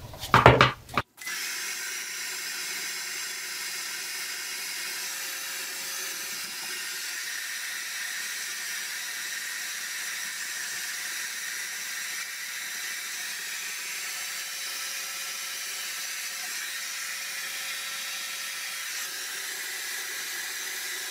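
Hand-held hair dryer running steadily, blowing on damp hair, an even rushing hiss with a constant motor whine. A brief loud noise comes in the first second, just before the steady run.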